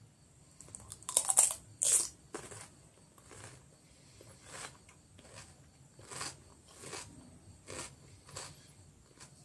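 Raw cucumber being bitten and chewed close to the microphone: two loud, crisp crunches a little over a second in, then softer, wetter crunches as it is chewed, about one or two a second.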